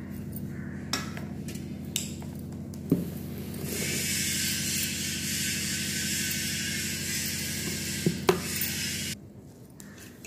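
Bare hand mixing and squeezing grated vegetables with spice powder and flour in a steel bowl, a rubbing, rustling scrape that is loudest in the middle stretch. There are a few sharp clicks in the first few seconds. A low steady hum runs underneath and cuts off together with the rustle near the end.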